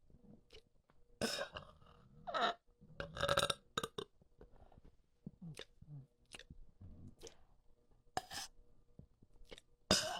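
A person burping: a string of short, separate burps with pauses between them, the loudest about three seconds in.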